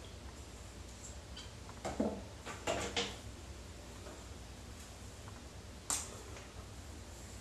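Light clicks and knocks from hair tools and clips being handled, a cluster about two to three seconds in and one sharp click near six seconds, over a low steady hum.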